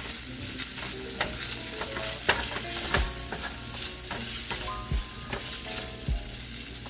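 Chicken pieces sizzling in oil in a frying pan, stirred and pushed around with a plastic spatula. Several knocks come as the spatula hits the pan.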